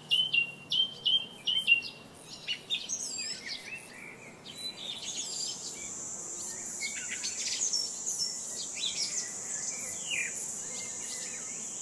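Songbirds chirping: a quick run of repeated chirps at first, then scattered, varied calls. From about five seconds in, a steady high-pitched insect drone joins them and carries on.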